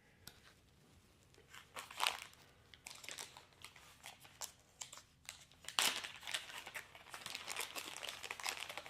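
Plastic packaging crinkling and tearing, with small clicks and rustles, as a new fuel filter is unwrapped by hand. The loudest rustles come about two seconds in and again about six seconds in.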